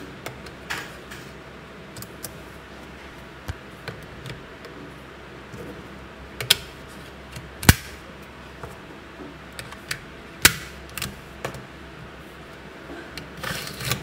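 Small magnetic balls clicking and snapping against one another as a slab of them is handled and set in place. The clicks are scattered and irregular, with a few sharper, louder snaps around the middle.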